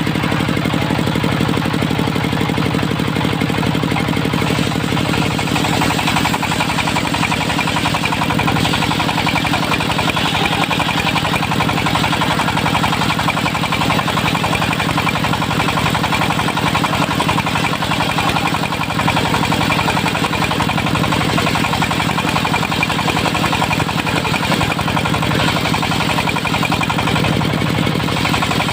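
Dongfeng diesel engine of a mobile circular sawmill running steadily with a rapid knocking beat. From about six seconds in, a harsher, higher noise rises over the engine.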